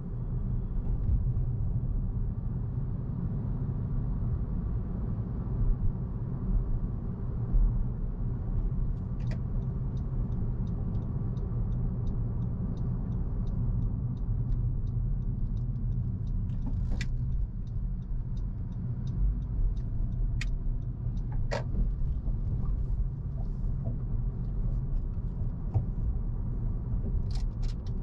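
Car driving: a steady low rumble of road and engine noise. From about a third of the way in there is faint regular ticking, with a few sharper clicks over it.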